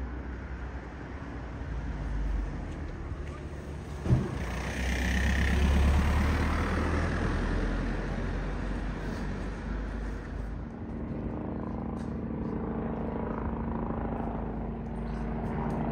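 Eurocopter EC145 police helicopter circling overhead: a steady low rotor drone, with a pitched hum coming through plainly in the last five seconds. A louder wash of noise swells between about four and ten seconds in, and a single sharp knock comes about four seconds in.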